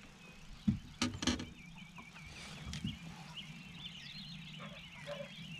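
A few knocks and thumps about a second in, from handling a just-landed crappie and rod on a boat deck. Under them a faint songbird sings a continuous wavering warble, over a low steady hum.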